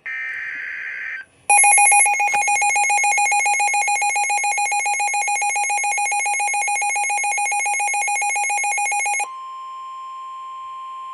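Midland WR400 weather radio sounding a severe thunderstorm warning alert. A short buzzy burst of SAME data tones is followed by about eight seconds of the radio's loud, rapidly pulsing alarm. From about nine seconds in comes the steady single-pitch Weather Radio warning alert tone.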